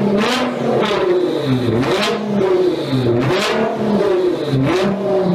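A car engine revving up and down over and over, its pitch rising and falling, with several sharp cracks reaching across the range.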